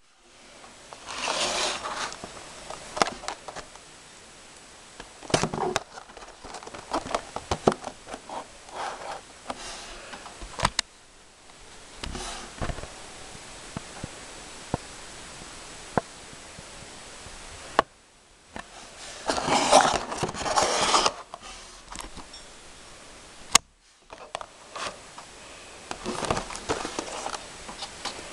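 Hands handling and opening a toy's retail packaging: bursts of scraping and rustling with many sharp clicks and taps, over a steady hiss.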